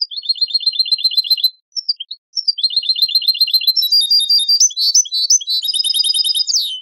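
European goldfinch song from a goldfinch song-training tape: two fast, even trills of about nine notes a second, two short chirps between them, then a denser, higher, varied warble that ends in a quick falling note.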